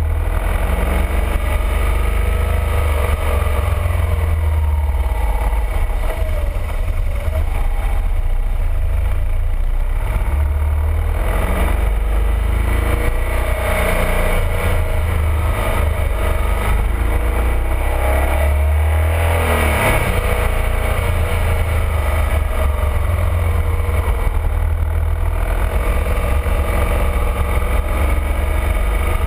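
BMW R1200RT's boxer-twin engine running under way, rising and falling in pitch as the motorcycle speeds up and slows through bends, under a heavy low rumble of wind on the microphone.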